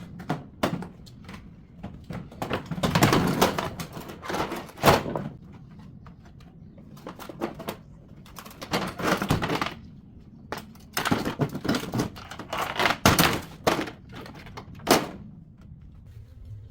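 Knocks, clatter and scraping of hand tools working on a top-loading washing machine's metal and plastic parts as it is taken apart for scrap. The sound comes in irregular bursts, with sharper single hits about five seconds in and near the end.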